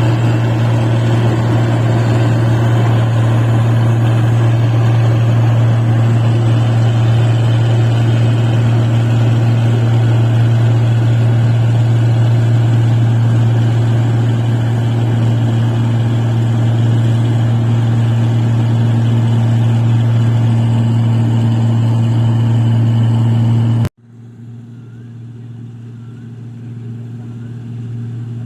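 Rice-harvesting machine's diesel engine running steadily at constant speed with a loud, even hum; about 24 seconds in the sound cuts abruptly to a quieter, more distant run of the same engine.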